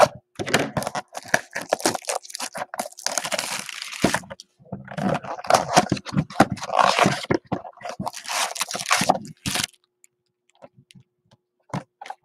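Cardboard blaster box of 2020 Topps Chrome baseball cards being torn open, with the packs pulled out: a dense run of ripping and crinkling that stops about ten seconds in. A few light clicks follow.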